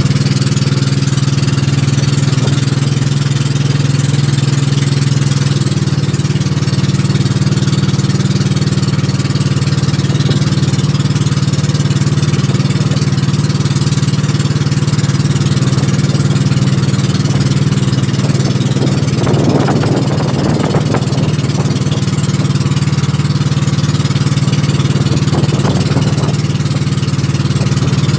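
Motorized outrigger boat's engine running steadily while the boat cruises, with a steady hiss of wind and water over it.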